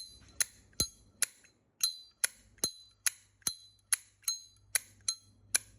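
Solid brass Zippo lighter's lid being flicked open and snapped shut over and over, about fourteen crisp metal clicks at roughly two and a half a second, each with a bright ringing tone: the clear 'bell tone' prized in this lighter.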